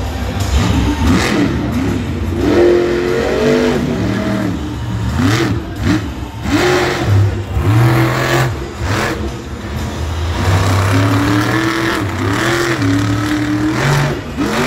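Monster truck's supercharged V8 revving hard, its pitch rising and falling in repeated surges.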